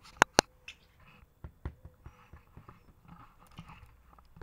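A small dog's claws and paws tapping and knocking on the vinyl of an inflatable pool swan, close to the microphone: two sharp taps just after the start, then scattered softer knocks.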